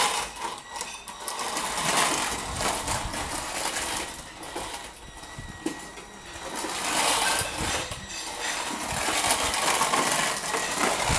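Small electric drive motors of a beetleweight combat robot whirring as it drives around on tiles, with clicks and clatter. It goes in surges that rise and fall, with a lull about halfway through, its drive switched through relay-based model-railway speed controllers.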